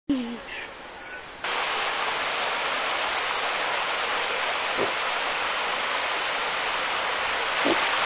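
Insects with a loud, steady high-pitched whine for about the first second and a half, cut off abruptly by the steady rush of a waterfall, which then continues on its own.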